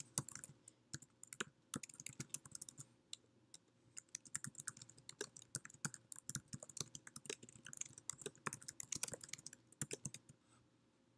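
Computer keyboard keys clicking faintly as a sentence is typed, in quick irregular runs with a short pause about midway.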